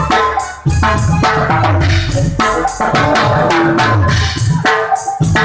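Loud music with a drum-kit beat and heavy bass, played through a sound system.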